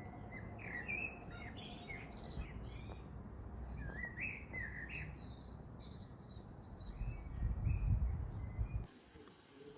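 Small birds chirping and tweeting in short repeated calls, over a low rumble that swells near the end and then cuts off suddenly.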